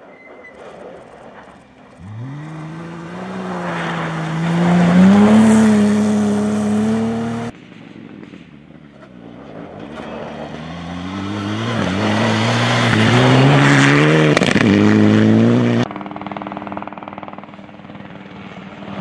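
Rally cars passing on a snow stage, two passes in turn. Each engine revs high and rises in pitch as the car accelerates through the corner, then cuts off abruptly. The second car is a Mitsubishi Lancer Evolution.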